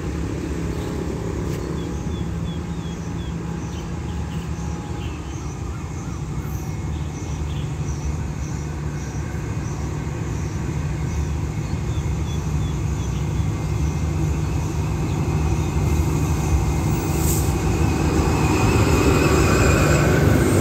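Diesel locomotive hauling an express passenger train as it arrives at the platform, its engine hum growing steadily louder as it draws near over the second half.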